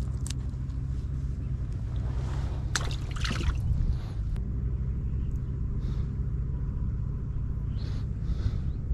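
Steady low rumble throughout, with a short cluster of clicks and rustles about three seconds in as bait shrimp are handled in a small plastic basket.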